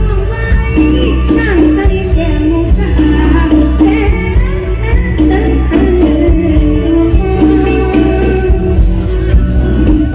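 Live mor lam band music with electric guitars, drums and keyboard playing a steady dance beat, and a woman singing over it.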